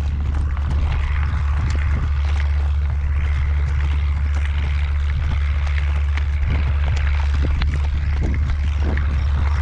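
Wind buffeting the microphone: a strong, steady low rumble with a rushing hiss over it.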